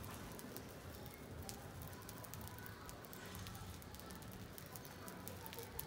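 Match heads on a matchstick model crackling as they catch and burn: many faint, irregular ticks over a low background noise.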